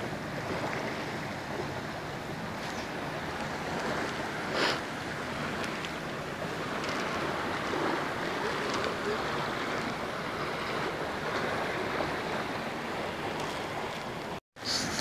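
Steady rushing of a large, fast-flowing river, with one short sharp sound about four and a half seconds in. It cuts off suddenly near the end.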